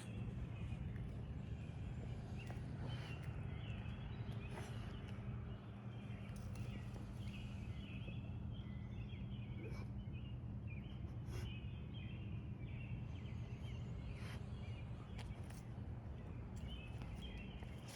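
Songbirds chirping and singing over a steady low background rumble, with a few scattered light clicks.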